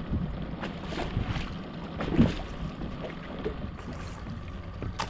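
A northern pike splashing in a landing net as it is lifted from the water into a fishing boat, with scattered splashes and knocks and a louder thump about two seconds in, over a steady low wind rumble.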